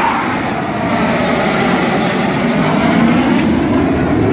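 Jet noise from a Dassault Rafale fighter's twin Snecma M88 turbofans as it passes low overhead on its landing approach. It is a loud, continuous rush whose pitch falls slowly as the jet goes by.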